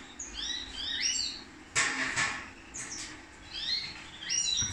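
Small caged finches chirping: short rising chirps in quick series, one run in the first second and another near the end, with a brief rustle about two seconds in.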